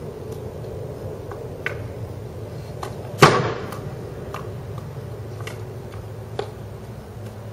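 Ice hockey stick working a paint-dipped puck: light taps of the blade on the puck and canvas every second or so, and one loud sharp crack about three seconds in as the puck is shot toward the wooden fence, with a brief ringing decay.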